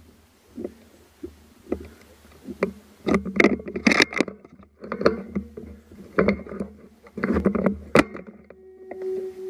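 Close-up handling noise around a rifle: irregular knocks, scrapes and rustles in clusters over a low rumble, with a sharp crack about eight seconds in. A steady ringing tone starts just before the end.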